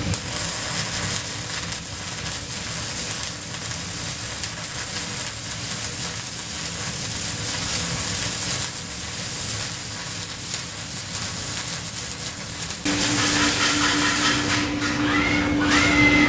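Robotic arc welding: the welding arc crackles and sizzles steadily. About thirteen seconds in the sound changes abruptly to a steady hum with a few short whines.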